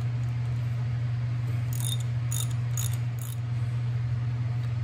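Light metallic clinks of tools and parts on the old cast-iron drill press head being taken apart: four short ticks about two seconds in, over a steady low hum.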